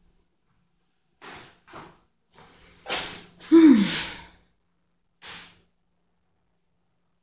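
A person's breathy exhalations, five of them, the loudest about three and a half seconds in ending in a voiced sigh that falls in pitch.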